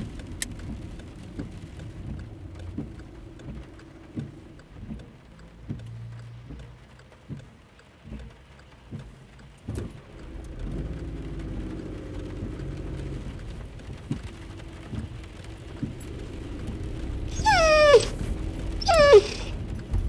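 Low road and engine rumble heard from inside a moving car, with scattered knocks and thumps, likely bumps and interior rattles. Near the end come two loud squeals, each falling quickly in pitch, about a second apart.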